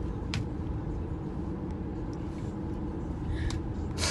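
Steady road and engine rumble inside a moving car's cabin, with a few short sharp sniffs from someone crying, the strongest near the end.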